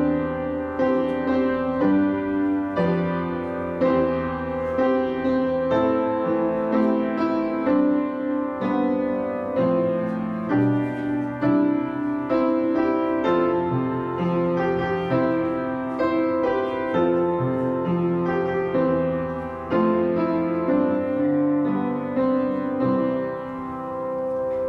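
Piano playing a slow, hymn-like piece in full chords, ending on a long held chord near the end.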